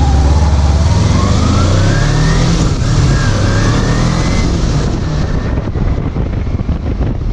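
Kawasaki Ninja 250 parallel-twin engine accelerating, its pitch rising, dropping once at a gear change about three seconds in, then rising again. Near the end wind noise on the microphone takes over from the engine.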